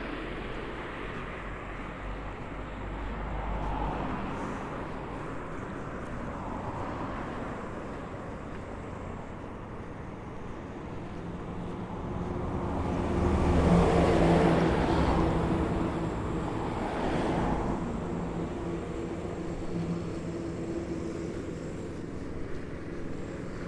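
Cars passing on a village street. The loudest goes by about fourteen seconds in, and an engine hum carries on for several seconds after it.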